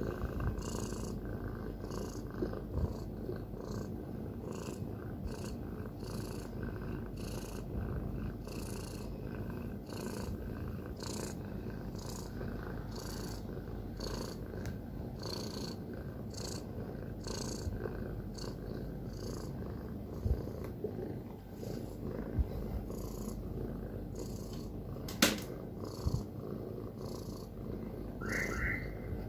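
Domestic cat purring steadily, the purr swelling with each breath about once a second. A sharp click about three-quarters of the way through, and a brief high-pitched sound near the end.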